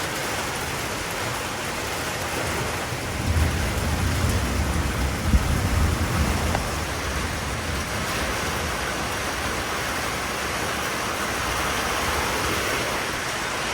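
Steady rain and wind in a thunderstorm, a continuous hiss. About three seconds in, a heavier low rumble rises and lasts a few seconds before easing back.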